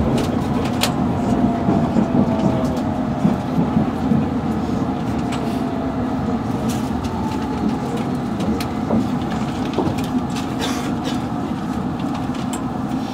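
London Underground Metropolitan line train running between stations, heard from inside the carriage: a steady rumble of wheels on rail with occasional sharp clicks and a faint whine that falls slightly in pitch in the first few seconds.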